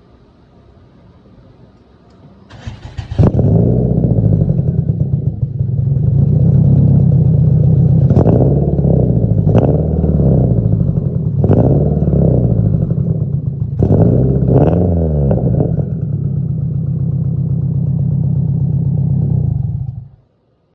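Subaru WRX FA20 turbocharged flat-four cranking and starting, then idling and being blipped about five times before it shuts off. The engine has a random cylinder 4 misfire, which the owner suspects comes from a bad direct injector.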